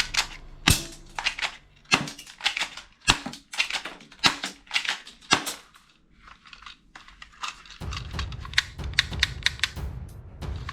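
A toy pistol being handled, giving an irregular run of sharp plastic clicks and snaps. A low music bed comes in near the end.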